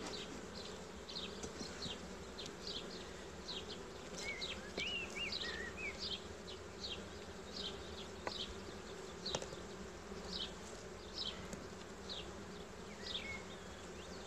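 Honeybees of an open Buckfast colony buzzing in a steady hum, with a run of short high chirps about twice a second over it and two sharp clicks near the middle.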